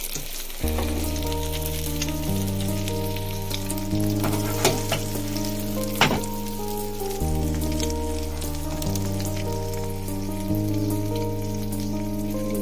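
Vegetable omelette batter sizzling and crackling in a frying pan, with sharp pops now and then. Background music of slow held chords comes in about half a second in and plays over it.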